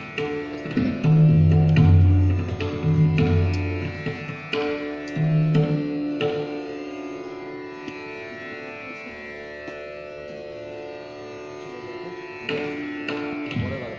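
Pakhawaj struck in scattered warm-up strokes before the recital begins: deep, ringing bass strokes and sharper slaps over a steady held drone. The strokes stop for several seconds in the middle and come back briefly near the end.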